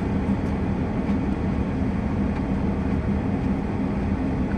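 Steady low hum of a vehicle running, heard from inside the cab, with a few faint ticks.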